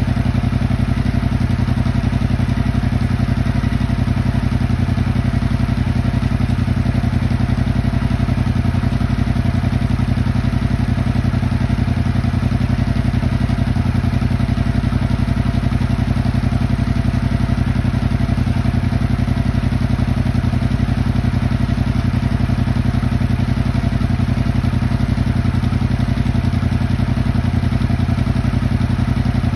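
Yamaha crossplane motorcycle engine idling steadily through its exhaust, warming up after a cold start on its first run after winter.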